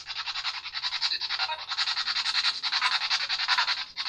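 Continuous choppy electronic static, pulsing about ten times a second, from a ghost-hunting communication device.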